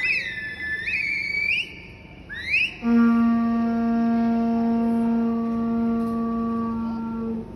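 A conch-shell horn sounds one long, steady low note for about four and a half seconds, stopping just before the end. Before it, a high whistle-like tone bends up and down, then gives a short rising glide.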